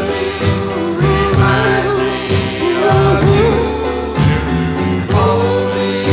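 Oldies-era pop ballad music: wordless group vocal harmonies with a wavering lead line, over bass and drums.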